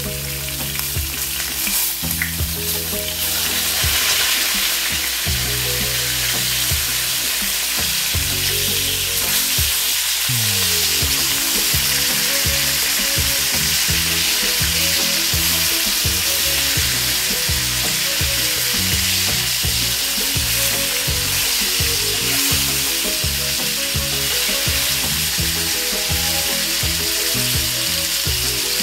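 Seasoned steaks frying in hot oil in an electric skillet, a steady sizzle, as a fork turns them over in the pan.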